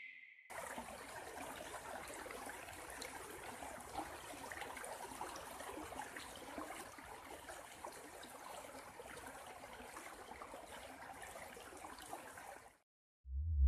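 Faint outdoor ambience: an even hiss with light crackles, cutting off suddenly near the end.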